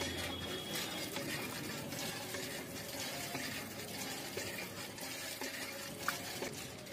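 Thin stream of water pouring from a miniature hand pump's spout into a small clay pot, a steady trickling splash as the pot fills. One brief sharp tap about six seconds in.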